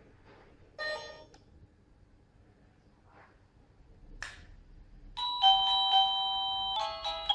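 A short tone about a second in and a click a little after four seconds. Then a SadoTech wireless doorbell receiver starts a chime: a loud held note from just past five seconds, breaking into a quicker tune near the end.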